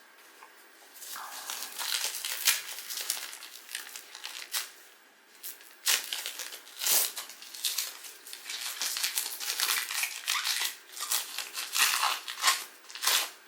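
Plastic wrapper of a Donruss Optic trading card pack crinkling and crackling as it is torn open and handled, in irregular bursts of rustling with a short lull about halfway through.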